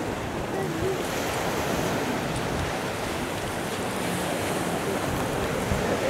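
Small waves breaking and washing onto a pebble beach, a steady surf.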